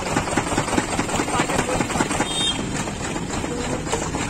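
Belt-driven sugarcane juice crusher running steadily, its rollers crushing cane stalks.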